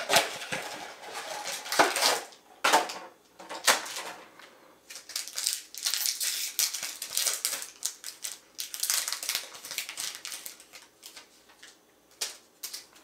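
Trading card packaging being handled and torn open: an irregular run of crinkling, rustling and sharp clicks, thickest in the middle and thinning near the end.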